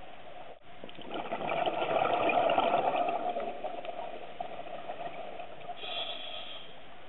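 A scuba diver's exhaled bubbles from the regulator gurgle and rush past the underwater camera for about three seconds, over a steady underwater hiss. A short, higher bubbling follows near the end.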